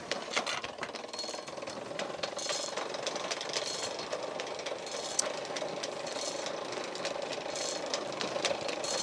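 Hand-cranked forge blower whirring steadily with its gears rattling and clicking as it forces air into the coal fire to heat the steel.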